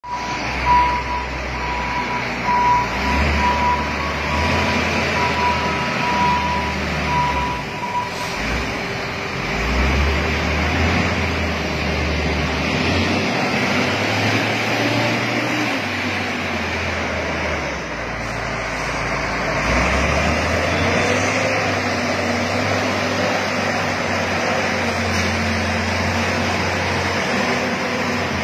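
Ensign YX657 wheel loader's Cummins diesel engine running and working, its note rising and falling as the loader drives and loads. A reversing alarm beeps steadily through about the first eight seconds.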